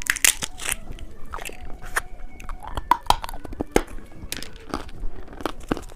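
Close-miked small, irregular clicks and crackles of candy packaging being handled and opened.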